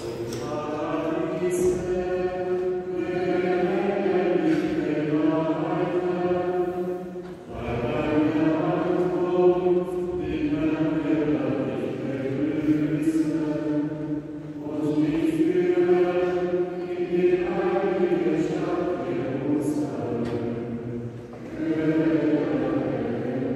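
A group of voices singing in unison, in long sustained phrases with brief pauses between them about every seven seconds.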